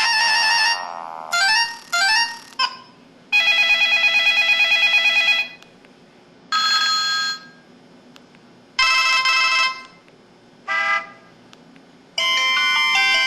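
MS100 mobile phone's built-in ringtones and effect sounds played one after another through its small speaker: short electronic tone clips with pauses between them, including a fast-pulsing buzz of about two seconds and a brief chime, with a multi-note melody starting near the end.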